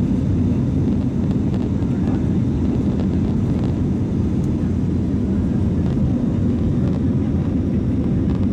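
Steady low rumble of an airliner cabin in flight: engine and airflow noise heard from a window seat, unchanging throughout.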